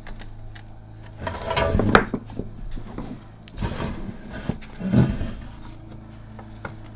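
Screwdriver prying the pressed-steel cab off a vintage Tonka toy truck's body: scraping and rattling metal that builds to a sharp crack about two seconds in. A few clunks and knocks of the metal toy being handled follow.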